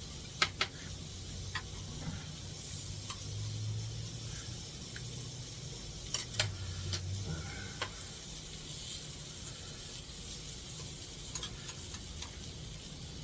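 Thin-sliced pork belly sizzling steadily in a hot pan, with a few sharp clicks scattered through.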